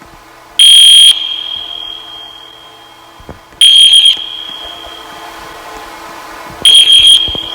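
Fire alarm sounding three short, very loud, high-pitched blasts about three seconds apart, the tone hanging on and fading after each one.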